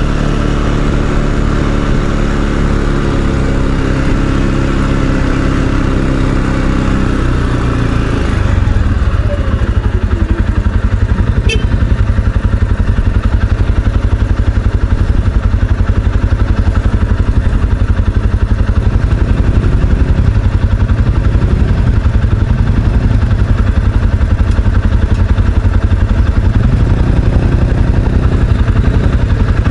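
ATV engine running under way at a steady speed. About eight seconds in it grows louder, with a rougher, choppier low rumble.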